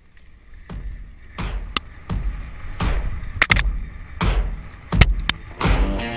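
Background rock music: a slow, even drum beat with a hit about every 0.7 seconds, some of them doubled. A sustained, humming guitar-and-bass riff comes in near the end.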